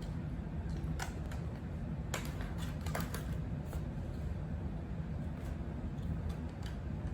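Eating sounds: scattered small clicks and crackles, thickest in the first half, over a steady low hum.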